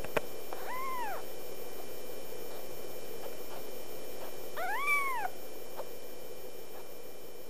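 A kitten meowing twice, about four seconds apart: short high calls that rise and fall in pitch. A faint steady hum runs underneath, and there is a sharp click just before the first meow.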